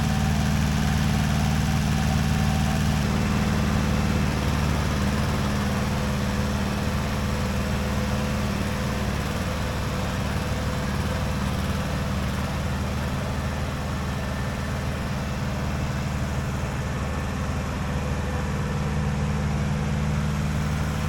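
Tractor engine running steadily at idle, a low, even drone with no change in speed.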